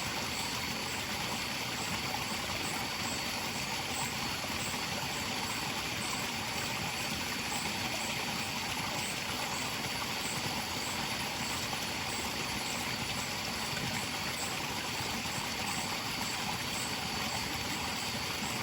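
Steady rush of a forest stream at night, with a thin high insect drone and faint, regularly repeating insect chirps over it.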